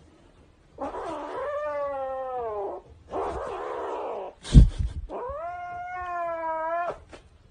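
Grey kitten yowling in two long, drawn-out calls that rise and then hold, with a breathy hiss between them. A sharp knock, the loudest sound, comes about halfway through.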